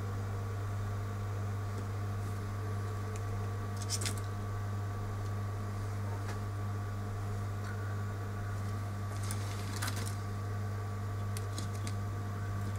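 A steady low electrical hum with a few light clicks and taps, one about four seconds in and a small cluster near the end.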